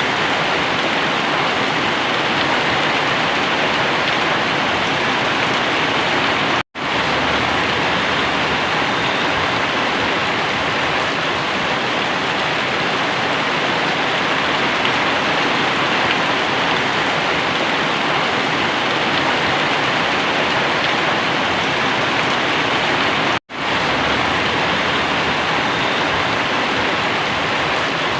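Very heavy rain pouring down, a dense, steady hiss. It cuts out for a split second twice, once about seven seconds in and again near the end.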